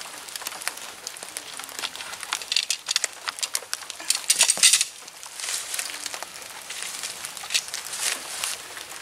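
Jointed tent pole sections being unfolded and snapped together: a run of sharp clicks and rattles, densest and loudest about four to five seconds in.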